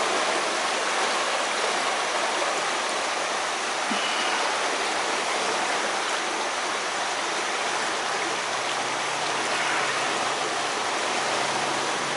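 Steady rush of a river running high in flood.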